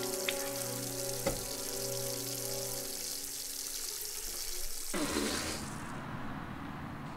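Water running steadily from a faucet into a sink, with a low sustained musical drone that fades out about three seconds in. About five seconds in there is a brief swell of noise, and the running water stops soon after.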